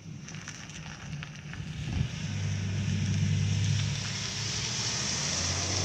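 Airbus A319 jet engines on approach, a rushing noise with a low rumble that grows steadily louder as the airliner closes in. A short thump about two seconds in.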